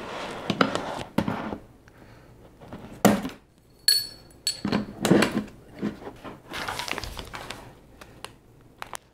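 Scissors snipping the thin plastic of a bucket bottom, then knocks and a short metallic clink as the scissors and other tools are set down on a wooden table.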